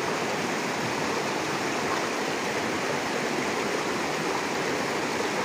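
Fast-flowing river rapids rushing steadily, white water churning just below the bank.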